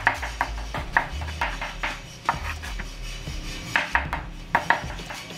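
Chef's knife dicing a tomato on a bamboo cutting board: sharp knocks of the blade against the wood, in short quick runs of two or three with brief pauses between.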